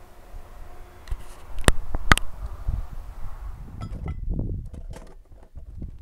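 Handling of camping cook gear: two sharp clicks, then thumps and rustling, then light clinks and rustles as a mesh stove bag and cook kit are unpacked on rocky ground.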